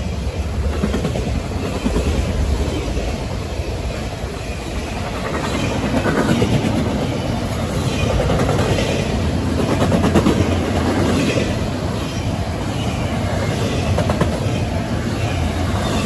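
A CSX intermodal freight train passing at about 60 mph, a steady loud rumble of wheels on rail with repeated clickety-clack as the cars run by.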